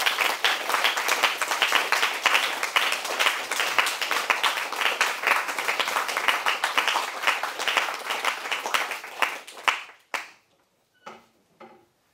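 Lecture-hall audience applauding: dense, steady clapping that stops about ten seconds in.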